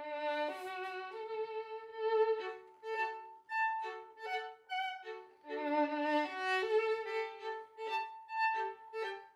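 Two violins playing a duet, a higher melody over a lower second part, in bowed phrases with brief breaks between them.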